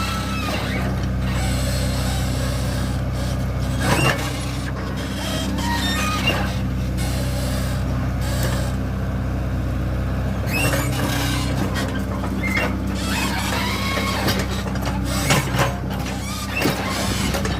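Excavator's diesel engine running steadily under working load, with high squeals and several sharp metal clanks from the arm and bucket as it digs.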